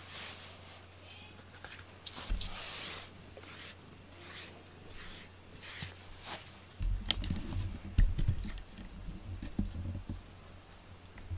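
Cat moving right up against the camera: soft rustling and brushing noises as it sniffs at it, then from about seven seconds in low bumps and rumbling as its body brushes past the microphone.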